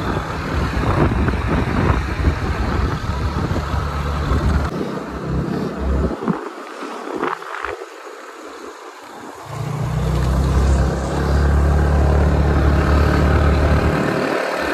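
Wind rushing over the microphone on a moving motor scooter, with the scooter's engine running beneath it. The rush falls away for about three seconds midway, then comes back.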